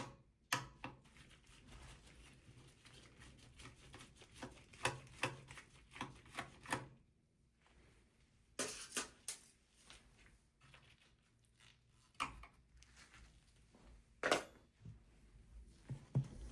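Light clicks, ticks and scrapes of small metal and plastic parts being handled inside a desktop PC during disassembly, with a few sharper clicks standing out, as the M.2 SSD is unscrewed and taken out.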